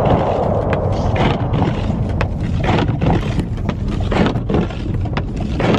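A car on the move: a steady low road rumble with frequent, irregular knocks and crackles over it.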